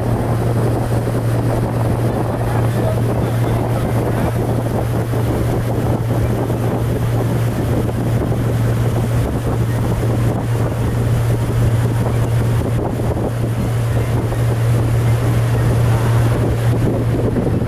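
Small motorboat running steadily under way: a constant low engine drone under the rush of water and wind on the microphone.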